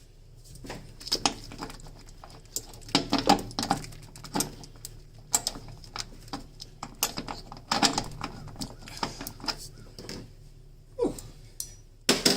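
Metal hand tools clinking and clattering in irregular bursts: sockets and a wrench being handled and tried on a nut to find its size.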